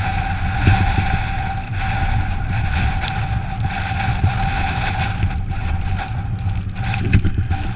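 Ford Crown Victoria driving on a snowy road: a steady low rumble of road and engine noise with a constant whine and scattered short clicks.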